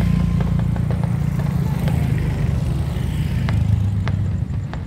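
A vehicle engine running steadily, with a few light clicks scattered over it.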